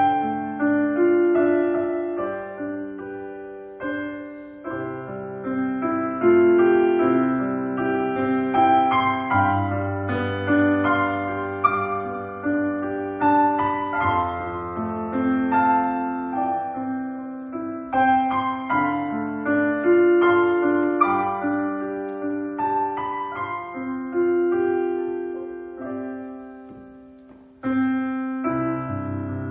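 Piano music: a melody over held lower notes. Near the end it fades, then a new phrase comes in suddenly.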